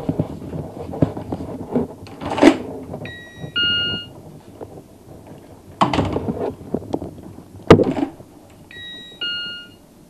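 Electronic doorbell chime sounding a two-note "ding-dong", high note then lower note, twice: about three seconds in and again near the end. Between and before the chimes come several sharp thumps and knocks.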